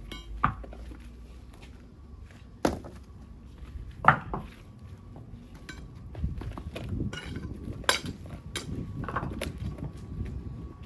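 Sharp clinks and knocks of hard objects, about five, spaced a second or more apart, with rough scraping between them in the second half.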